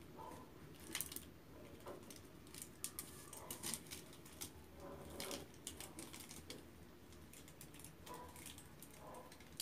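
Faint, irregular light clicks and rustles of small packaged school supplies being handled and sorted by hand.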